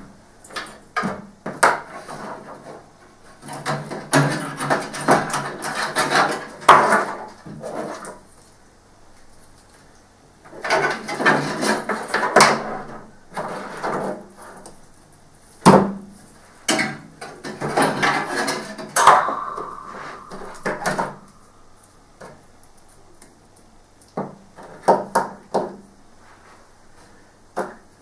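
Irregular clicks, knocks and scraping of hard parts being handled and fitted while a computer is assembled, coming in clusters with short pauses, with a brief squeak about two-thirds of the way through.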